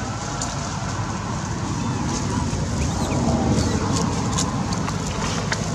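Steady low outdoor rumble with faint voices mixed in.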